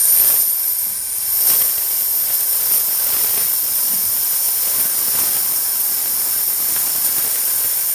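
Steam pipe of a combined water dispenser and capsule coffee machine releasing steam, a loud steady hiss.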